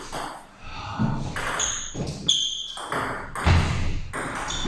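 Table tennis rally: a celluloid-type ball struck back and forth, with sharp clicks of ball on bat and table, several leaving a short high ping.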